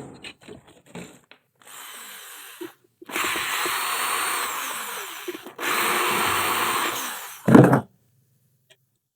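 A handheld power drill or driver running in two loud steady bursts of a couple of seconds each, after a few light clicks and handling noises, with a sharp knock near the end.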